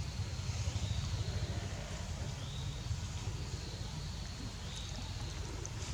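Steady low rumble, with faint short high-pitched calls repeating every second or two.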